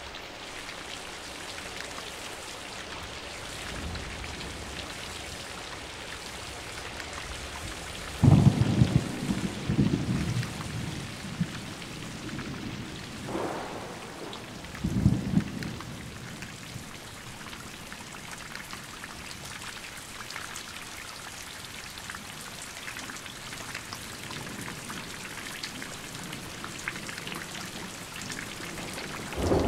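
Steady rain falling, with thunder: a faint rumble about four seconds in, a loud crack and rumble about eight seconds in that rolls on for a few seconds, and two shorter claps around thirteen and fifteen seconds in. Thunder breaks again right at the end.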